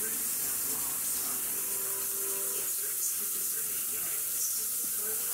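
Kitchen sink faucet running steadily, the water hissing into the sink.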